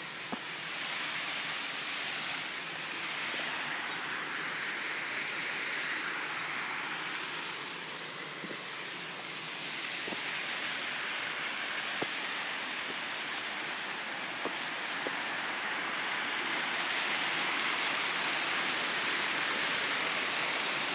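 Waterfall: a steady rush of falling water, an even hiss strongest in the upper range, dipping slightly for a moment about eight seconds in.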